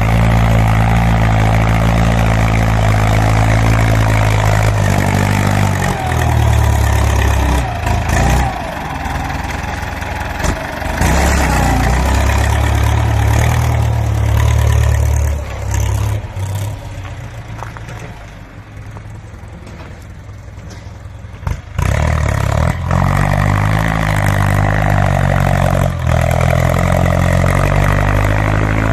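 Ford 6640 tractor's diesel engine running loud, its pitch rising and falling as it is revved. It drops quieter for a few seconds past the middle, then comes back to full sound after a sharp knock.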